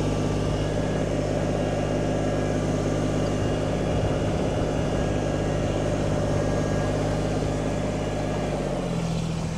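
Kubota BX25D compact tractor's three-cylinder diesel engine running steadily at raised RPM while the loader hydraulics lift the front loader. Near the end the engine note shifts and the level drops a little.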